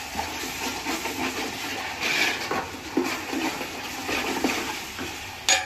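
A spatula stirring chicken pieces through thick, wet masala in a large metal pot, in repeated wet stirring strokes, with one sharp knock near the end.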